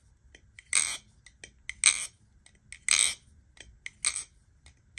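Marcolo Comet balisong being flipped: its handles clack shut about once a second, with lighter ticks in between. A clean, bouncy flipping sound that the flipper says sounds pretty good.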